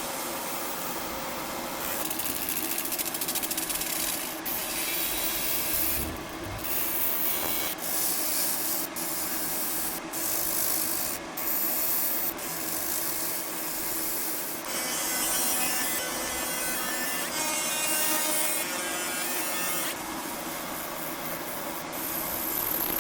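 Coating being stripped from an airsoft pistol slide: a steady machine hum under an abrasive hiss, changing abruptly every second or two in short cut-together shots.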